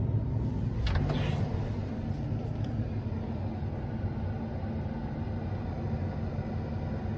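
John Deere S790 combine running, heard from inside the cab as a steady low drone, with a brief click and a short rush of hissing noise about a second in.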